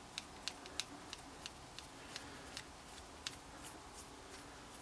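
Faint, fairly regular light ticking, about three clicks a second, over quiet room tone.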